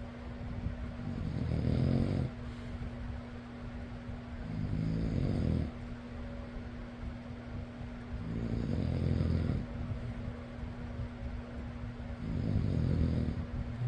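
A person snoring: four snores in a slow, regular rhythm, one about every three and a half seconds, each lasting about a second. Under them runs the steady hum of an electric fan.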